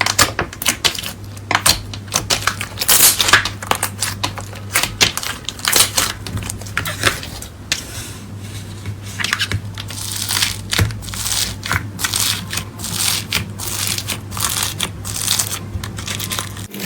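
Slime being squished and pressed by hand: a dense run of quick crackling clicks.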